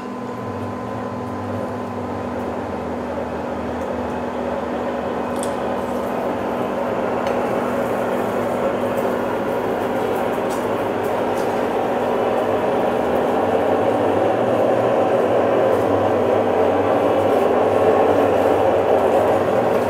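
Monarch engine lathe running with a large Morse-taper twist drill cutting into a crane sprocket spinning in the chuck. A steady grinding cutting noise sits over the lathe's gear hum and grows gradually louder.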